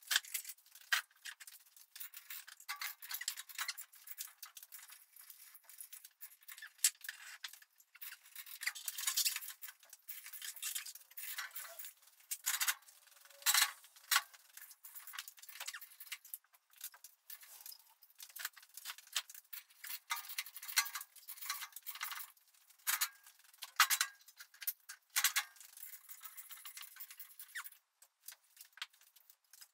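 Metal clinking and rattling from a gantry crane's chain hoist and the engine hanging on it as it is shifted by hand, in irregular clicks and knocks with a few louder clanks about halfway through. The sound is thin, with no low end.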